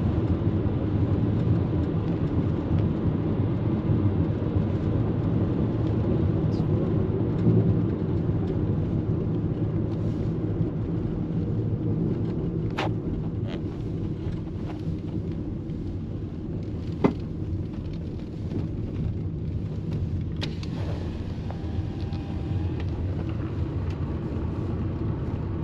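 Steady low rumble of a car's engine and tyres on the road, heard from inside the moving car. A few sharp clicks sound over it, the loudest about seventeen seconds in.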